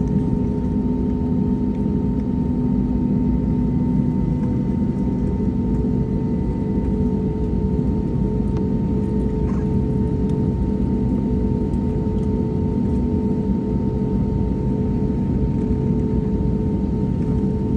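Airbus A320neo's jet engines running with a steady hum over a low rumble, carrying several steady tones; one tone steps slightly higher about five seconds in.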